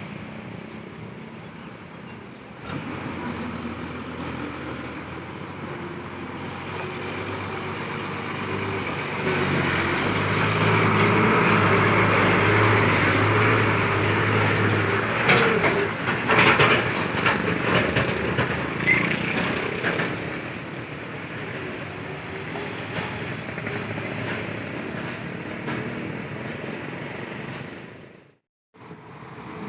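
Road traffic with a heavy truck's engine running past, loudest from about ten to fifteen seconds in, followed by a short rattle of clicks. The sound cuts out briefly near the end.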